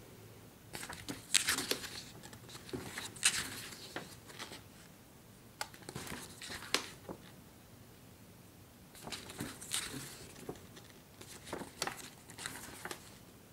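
Glossy magazine pages being flipped and handled: a series of short papery rustles and crinkles, with quieter gaps around 4–5 s and 7–9 s.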